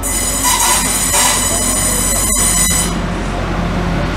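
Passenger train's brakes squealing as it draws into the station: a high, many-toned squeal over rushing wheel noise that ends about three seconds in. It leaves a low steady engine hum.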